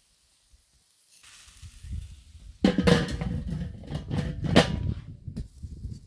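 Metal lid of a kettle charcoal grill being handled and set on, a cluster of clanks and knocks that starts suddenly about two and a half seconds in, after a near-quiet opening.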